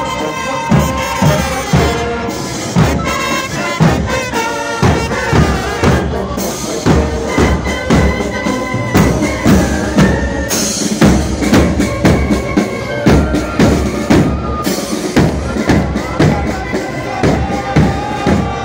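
Military brass band playing a march, brass melody over a steady bass-drum beat about two beats a second.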